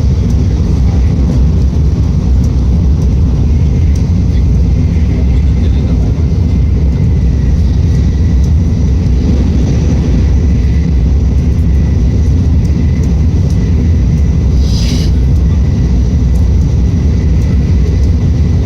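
Tokaido Shinkansen train running, heard from inside the passenger cabin: a loud, steady rumble of the moving train, with a faint steady whine and a brief hiss about fifteen seconds in.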